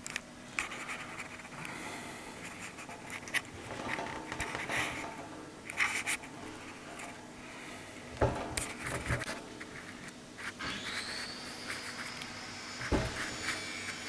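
Handling noise: scattered rustles and scrapes with a couple of dull thumps, and a thin high whine that rises in pitch about ten and a half seconds in and then holds steady.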